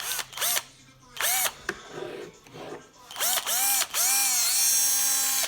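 INGCO drill-driver motor run in short trigger pulses, each one whirring up to speed and winding back down, several quick blips in a row. It then runs steadily for about a second and a half, dipping in pitch once, and stops abruptly near the end.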